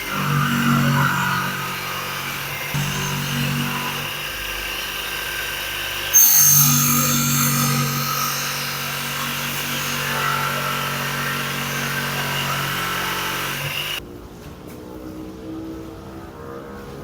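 Electric power tool running on metal in a rust-removal restoration, a steady motor hum with hiss. About six seconds in it turns loud and harsh, as from metal pressed against the tool, and the sound cuts off about three seconds before the end.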